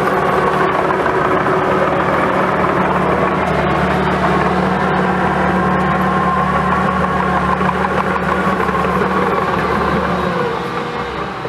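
Diesel engine of a John Deere 650H crawler dozer running steadily while working dirt, easing off slightly near the end.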